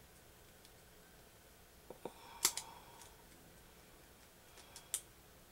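Small plastic parts of a Mini Brands miniature shopping basket clicking as they are pressed and snapped together. There is a cluster of sharp clicks a little before halfway, the loudest among them, and a few lighter ones near the end.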